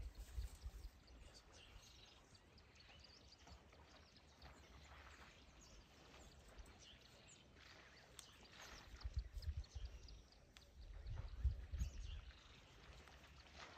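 Faint open-air ambience with scattered bird chirps, and low rumbling bursts around the middle and again near the end.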